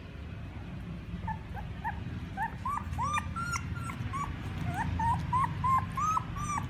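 Very young husky-mix puppies squeaking and whimpering: short, high, arching squeaks, a few a second, coming thicker from about halfway in.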